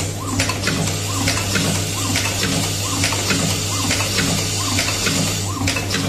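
Automatic lobster claw clasp assembly machine running: a steady low hum under a quick, uneven patter of small metallic clicks and ticks from the mechanism and the parts.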